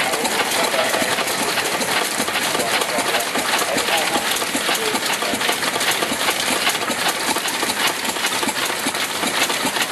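Lister CS 3.5 hp single-cylinder diesel engine running steadily with a rapid, even knock, belt-driving a Macson 4-inch water pump.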